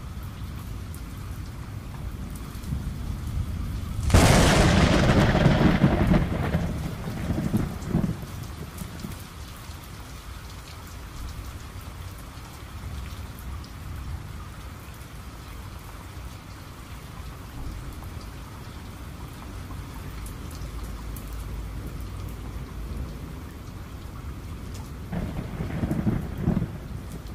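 Steady rain with a sharp thunderclap about four seconds in that rumbles away over the next few seconds, and a second, softer roll of thunder near the end.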